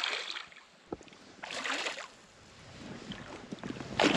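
A hooked trout splashing at the water's surface as it is played in to the net, in several short bursts of splashing, the loudest near the end.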